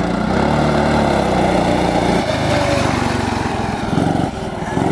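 Small gas engine of a converted Power Wheels ride-on car running loudly under throttle as it drives close past. Its note shifts about two seconds in, and the sound drops a little near the end.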